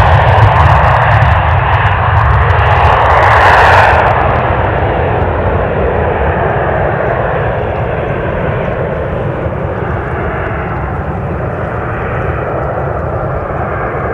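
Dassault Falcon 7X's three Pratt & Whitney Canada PW307A turbofans at take-off power as the jet climbs away. A crisp crackle on top of the engine noise stops abruptly about four seconds in, and the sound then fades steadily.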